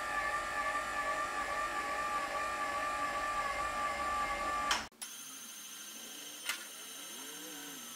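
Small electric right-angle gear motor driving a drill press table's height mechanism, a steady whine that stops abruptly about five seconds in. After that there is quiet room tone with a single click.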